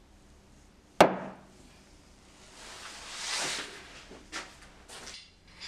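A turned wooden carving mallet is set down hard onto a tabletop about a second in, giving a sharp wooden knock. A scraping sound then swells and fades, a few light clicks follow, and another knock comes at the end.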